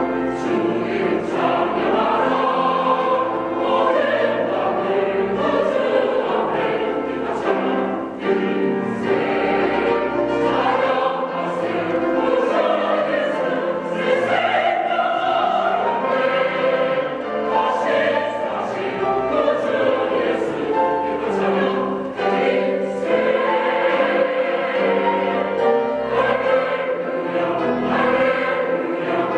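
Mixed church choir singing a Korean hallelujah anthem in sustained, full-voiced harmony, over an instrumental accompaniment with low held bass notes.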